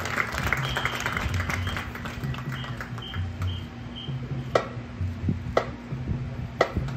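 Marching band percussion playing softly: short low drum notes recur underneath, and from about halfway through a sharp click sounds about once a second, like drumsticks tapping a steady beat.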